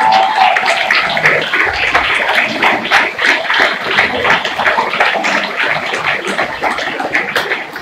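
Audience and performers applauding: dense, continuous clapping that slowly dies down near the end.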